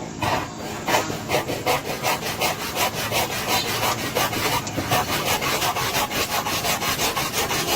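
Rapid, rhythmic scraping strokes, about four a second, that keep going without a break.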